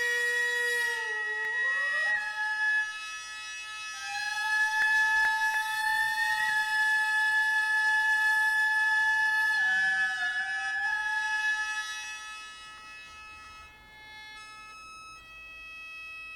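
Traditional Japanese court-music wind instruments playing a slow melody of long held notes that bend and slide between pitches, over a steady sustained chord. The sliding melody drops out about twelve seconds in, leaving the held chord quieter.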